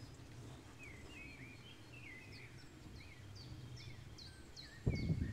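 Birds chirping in quick short notes over a steady low hum, with a sudden burst of loud low rumbling near the end.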